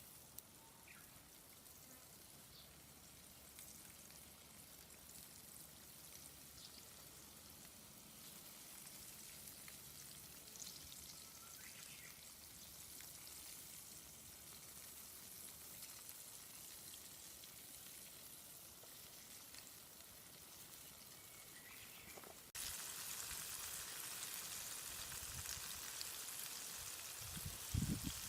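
Bone-in chicken pieces deep-frying in oil: a faint, steady sizzle that suddenly becomes louder about 22 seconds in.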